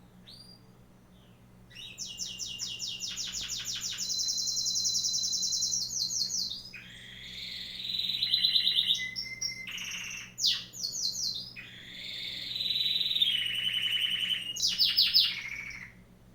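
Wild bird singing long, rapid trills in several phrases, beginning about two seconds in; the later phrases sit lower in pitch than the first.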